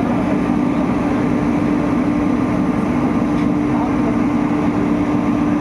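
Bulldozer's diesel engine running steadily with a constant hum, over the chatter of voices.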